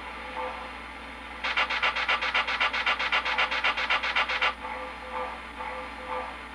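Standing steam sounds from the Proto-Sound 2 sound system of an MTH O-gauge steam locomotive: a fast, even run of hissing pulses, about eight a second, starts about a second and a half in and stops sharply about three seconds later, followed by softer, slower pulses about twice a second.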